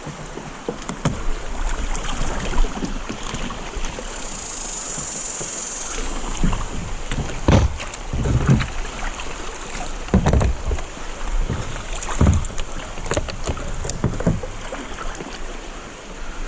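Kayak on moving water: water sloshing and splashing against the hull, with a run of irregular splashy thumps every second or two through the second half.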